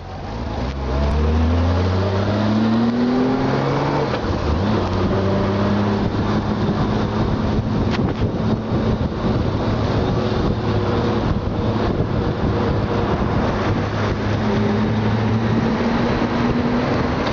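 Honda Gold Wing motorcycle engine pulling away, its pitch rising through the first few seconds and dropping at a gear change about four seconds in, then running steadily at cruising speed under wind and road rush, climbing a little again near the end.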